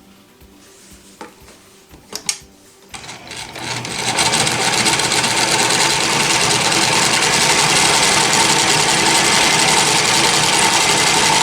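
A few light clicks, then a Janome L393 sewing machine starts about three seconds in, picks up speed for about a second and runs steadily, stitching on its blind hem setting.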